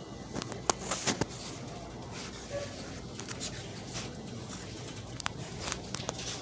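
Scattered clicks and rustling of merchandise being handled, over a steady low hum of store background.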